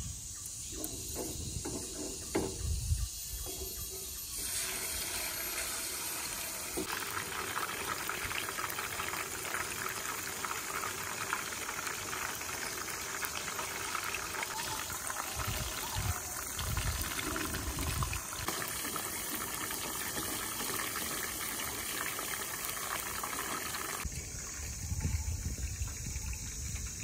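Chicken coated in yellow spice paste deep-frying in hot oil in a frying pan: a dense, steady sizzle that sets in about four seconds in, after a few low knocks, and cuts off near the end.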